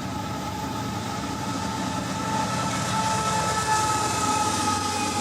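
A train running: a steady rumble under two held tones that drift slightly in pitch.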